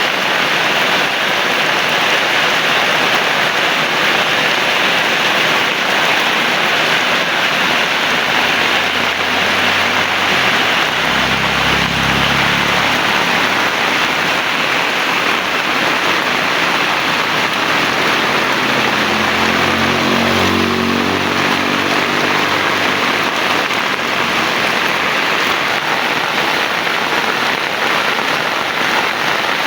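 Heavy rain falling in a steady, dense hiss. Twice, about ten seconds in and again about twenty seconds in, a low engine hum swells and fades beneath it, as a vehicle passes.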